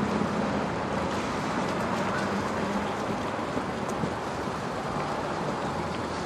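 Steady rushing background noise of wind and distant road traffic.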